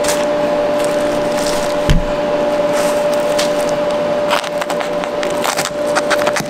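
Knife slicing through a raw bluefin tuna loin, a run of wet crackling clicks that grows denser in the last couple of seconds, with a low knock about two seconds in. A steady hum sounds underneath.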